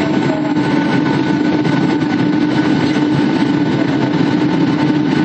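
Jet airliner cabin noise at a window seat over the wing: a steady drone of the engines and rushing air with a constant hum, on approach to landing.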